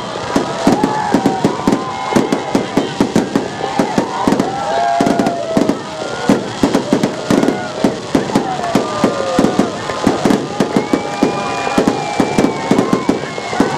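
Fireworks display: a dense, continuous string of bangs and crackles, several a second, with no let-up.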